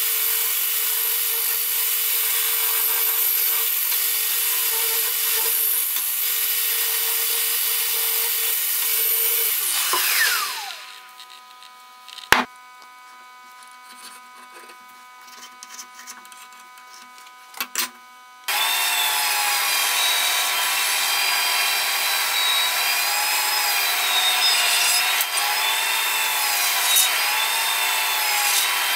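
Festool Rotex RO 150 random-orbital sander running on the steel cleaver blade, then spinning down with a falling whine about ten seconds in. A quieter stretch follows with a sharp click, then a bandsaw starts about two-thirds in and cuts wood, its pitch wavering under load.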